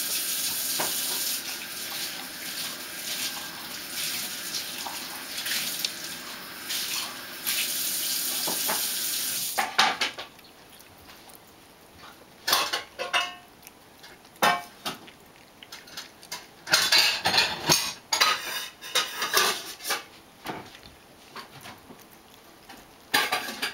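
Ragdoll cat crunching dry kibble from a plastic bowl: irregular crisp crunches and small knocks, heard most clearly in the second half. A steady hiss covers the first ten seconds and cuts off suddenly.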